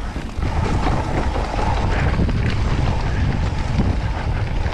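Wind buffeting the microphone while a mountain bike descends fast on a rough, rutted dirt trail, the bike rattling over the bumps, with a steady buzz running underneath.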